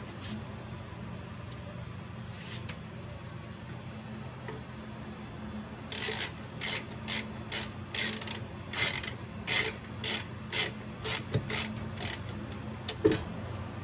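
Hand ratchet tightening the mounting nuts of a bill validator: a run of short rasping clicks on each back-stroke, about two a second, starting about six seconds in and stopping a little before the end. One sharper knock follows near the end.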